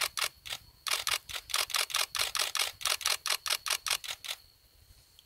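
Camera shutter firing in rapid bursts, about five frames a second: a short burst, a brief pause, then a longer run of about three and a half seconds.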